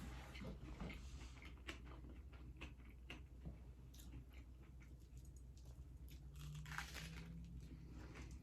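A person chewing and biting food close to the microphone, with faint crunchy mouth clicks. There is a brief louder hiss about seven seconds in.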